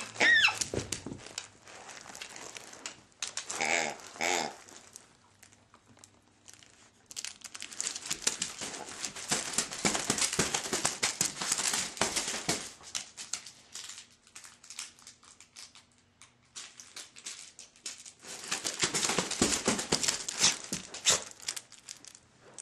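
Crinkling, crumpling noise in two long stretches, with short squealing sounds that bend in pitch at the very start and again about four seconds in.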